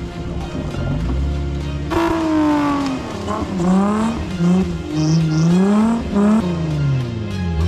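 Off-road 4x4's engine revving hard several times from about two seconds in, its pitch climbing and dropping with each burst and falling away near the end, over background music.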